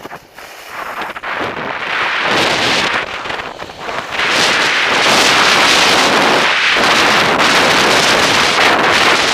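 Wind rushing over a skier's action-camera microphone during a fast downhill run, growing louder over the first few seconds and then a steady loud rush from about four seconds in.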